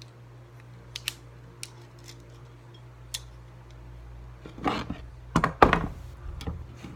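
Metal pliers being handled: a few sharp clicks, then a cluster of louder clunks and clatter about four and a half to six seconds in.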